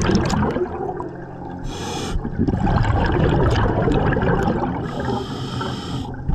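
Scuba diver breathing through a regulator underwater: exhaled bubbles gurgling out, broken by two hissing inhalations, one about two seconds in and a longer one near the end.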